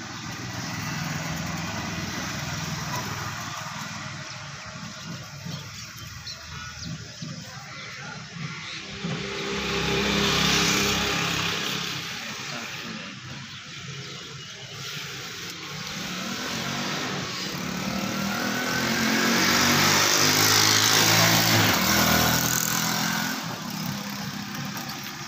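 Electric angle grinder fitted with a sanding disc running against the wood of a door panel. It grows louder twice, about ten seconds in and again around twenty seconds, the second time with a rising whine.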